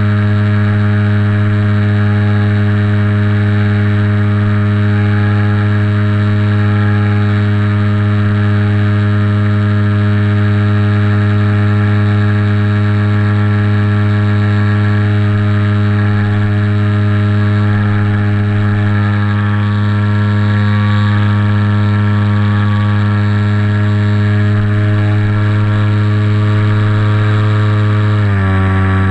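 Motor and propeller of a radio-controlled flying wing running steadily at cruise throttle, a loud even drone with many overtones. Its pitch drops a step near the end as the throttle is eased back.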